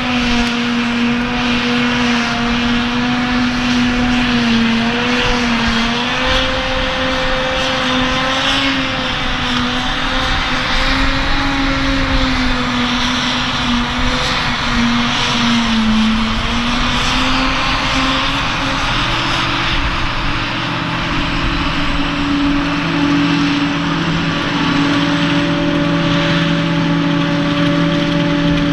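Claas Jaguar 940 self-propelled forage harvester running under load while chopping grass: a loud engine drone that wavers in pitch as the load changes, over a steady rush of crop going through the machine. About two-thirds of the way through, a second, steadier engine note joins.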